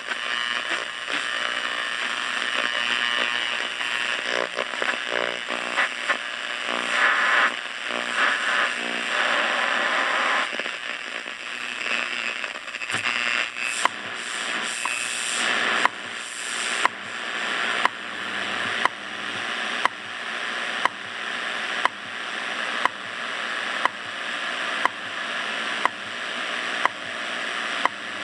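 Hallicrafters S-38D tube shortwave receiver playing through its speaker while tuned across the band: static and hiss with whistling tones. From about halfway through, a sharp click recurs roughly once a second over the hiss.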